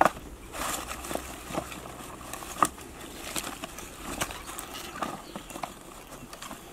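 Split firewood pieces knocking together as they are picked up off the ground and stacked, with dry fallen leaves rustling. Irregular wooden knocks, the sharpest about two and a half seconds in.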